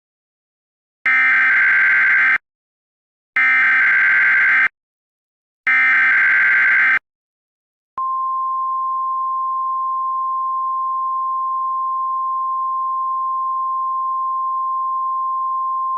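Emergency Alert System SAME header: three identical bursts of harsh digital data tones, each about a second and a half long, with short gaps between them. About eight seconds in, the steady single-pitched NOAA Weather Radio 1050 Hz warning alarm tone begins and holds, announcing a new warning.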